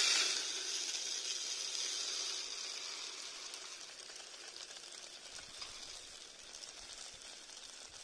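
Small grain feed trickling out of the neck of an upturned plastic bottle into a plastic bowl: a steady hiss of running grains that starts suddenly and slowly tapers off as the grain piles up around the bottle's mouth.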